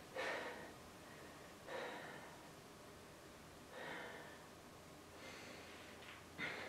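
Faint, heavy breathing from a man, about five breaths, one every couple of seconds.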